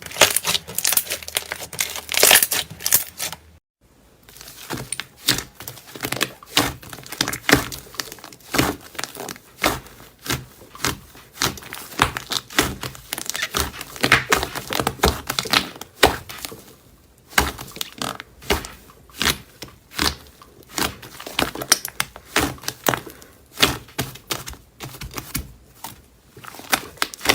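Slime being squeezed, stretched and poked by hand, making dense crackling, popping and squelching clicks. A short break about four seconds in.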